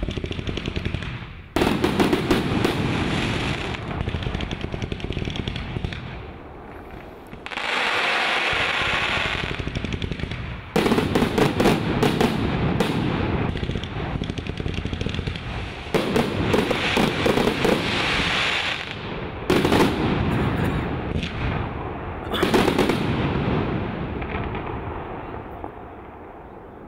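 A multi-piece consumer firework set firing in several successive waves. Each wave starts abruptly with a dense, rapid volley of pops and bangs. About eight seconds in there is a stretch of steady hissing, and the firing fades out near the end.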